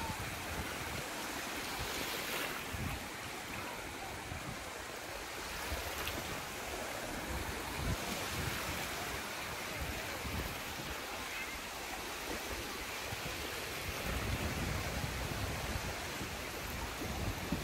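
Small freshwater lake waves lapping and breaking on a sandy shore as a steady wash of surf. Wind rumbles on the microphone, heavier in the last few seconds.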